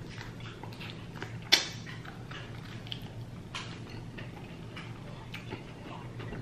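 Eating sounds at close range: scattered soft clicks and mouth smacks, with one sharper click about a second and a half in, over a low steady hum.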